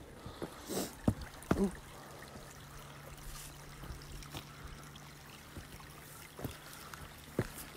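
Faint trickle of running spring water, with scattered clicks and rustles of handling and footsteps. A low steady hum comes in about a second and a half in.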